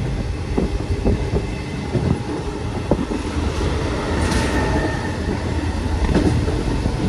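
Running noise of an old Medie Distanze passenger coach heard through its open window: a steady low rumble and rush of air, with the wheels knocking irregularly over rail joints. About four seconds in there is a brief louder whoosh as the coach passes under a bridge.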